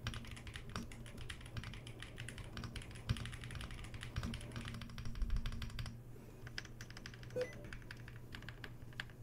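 Typing on a Hexgears M2 gasket-mount mechanical keyboard with linear switches: a steady, irregular run of quiet key clicks and keystrokes, with a brief lull about six seconds in.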